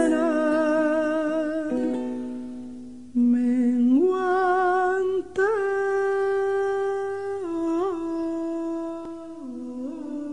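A man humming a slow, wordless melody in long held notes with vibrato, phrase after phrase.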